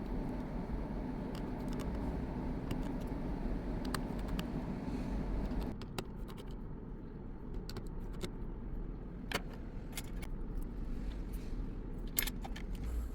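Light clicks and taps of small metal repair tools handled on an opened iPhone 11, over a steady low background rumble whose hiss drops away about six seconds in.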